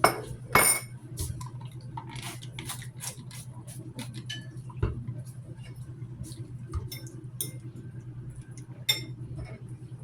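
Scattered light clinks and taps of glass and dishware being handled while spices go onto the chicken, over a steady low hum. The sharpest clinks come right at the start and about nine seconds in.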